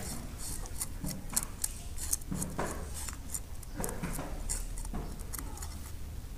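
Knife blade scraping along a raw fish's skin to clean it, a quick series of short, sharp scratchy strokes, about three a second.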